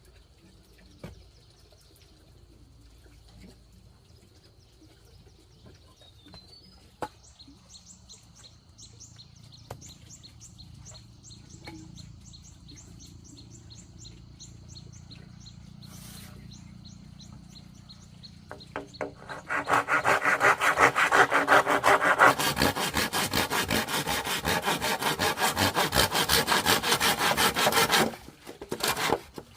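A saw cutting through wood in rapid back-and-forth strokes, starting abruptly about two-thirds of the way in and pausing briefly near the end. Before it, only faint knocks and a light, even high ticking are heard.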